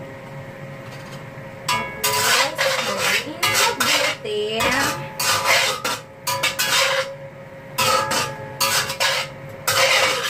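Spatula scraping and stirring food in a stainless steel wok during a stir-fry of taro and pork, in repeated strokes starting about two seconds in.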